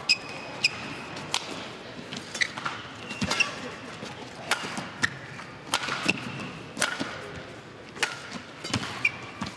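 Badminton rally: sharp racket-on-shuttlecock strikes, about a dozen at roughly one a second, with short high shoe squeaks on the court between them.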